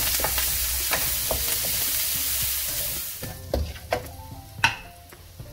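Chopped onion, mustard seeds and curry leaves sizzling in hot oil in a nonstick pan, stirred with a wooden spatula, with many small pops and crackles. About three seconds in, the sizzle drops away sharply, leaving a quieter fry and a few sharp knocks of the spatula on the pan.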